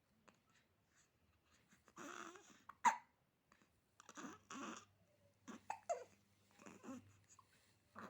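Newborn baby hiccuping and breathing: a run of short breathy catches and small squeaks, the sharpest and loudest hiccup about three seconds in.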